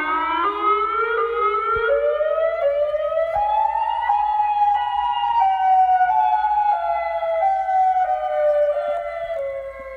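A loud siren-like horn tone that starts abruptly, climbs in pitch in small steps for about four seconds, then slowly slides back down, growing a little quieter near the end.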